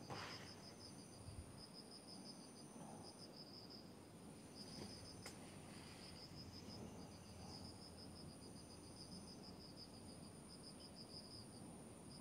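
Faint insect chirping, likely crickets: short trains of rapid high-pitched pulses repeating every second or so over a steady high thin buzz.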